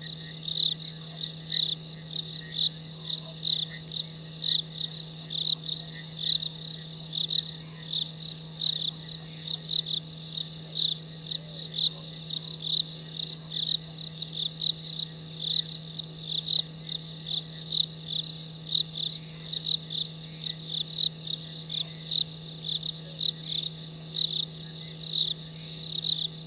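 Night chorus of insects at a waterhole: short high chirps repeating about twice a second over a steady higher trill, with a constant low hum beneath.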